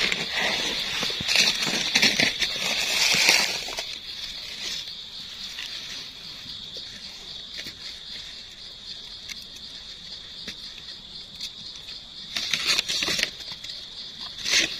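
Dry leaf litter and twigs rustling and crackling as hands and a small knife dig through them. The rustling is densest over the first four seconds and comes back in two short bursts near the end. Behind it runs a steady high-pitched insect drone.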